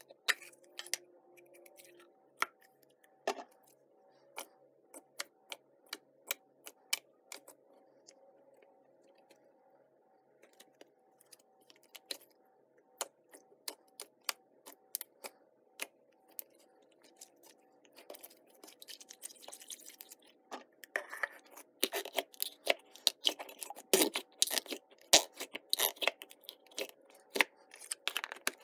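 Pink Flarp noise putty squeezed and kneaded by hand, giving a string of small sharp pops and clicks. In the second half the sounds come thicker and louder, as the putty is worked harder and pressed into its tub.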